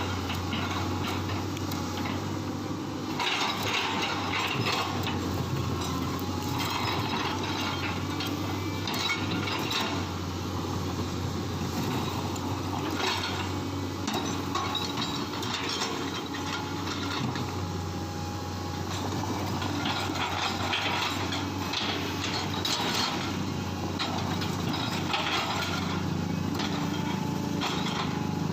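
Excavator's diesel engine running steadily, with frequent clanks and knocks of the machine at work.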